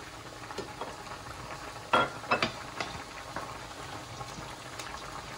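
Onion, mushrooms and red peppers frying in olive oil in a pan, sizzling steadily. A few sharp knocks against the pan come about two seconds in.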